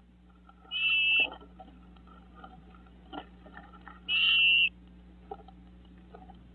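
Great crested flycatcher calling: two clear whistled calls, each about half a second long, about three seconds apart, over faint rustling and clicking of birds moving in the nest box.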